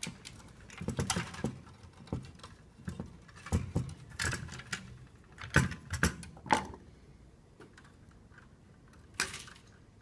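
Insulated copper wires being pushed and pulled through metal electrical boxes and conduit: irregular clicks, taps and scraping rustles of wire against steel. They stop about two-thirds of the way through, with one more click near the end.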